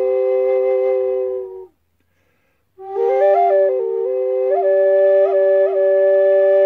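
Wooden reclaimed-mahogany drone flute playing: a steady drone note held beneath a slow melody on the second chamber, with quick grace-note flicks. Both notes stop for about a second, a breath, before resuming.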